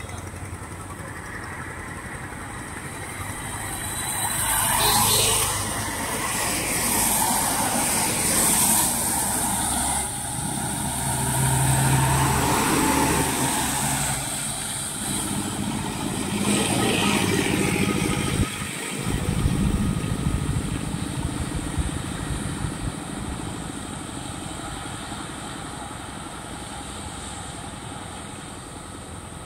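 Heavy trucks and other road traffic passing on a wet road: engine rumble and tyre hiss swell and fade as vehicles go by. The sound drops out briefly about two-thirds of the way through.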